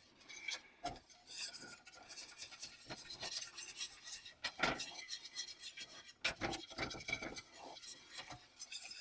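A utensil stirring thick cream sauce in a pan, with repeated irregular scrapes against the pan.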